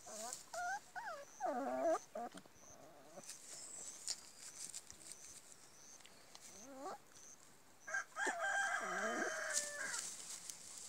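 Nursing puppies whimpering and squeaking in short calls that slide up and down in pitch, with a longer, steadier call near the end.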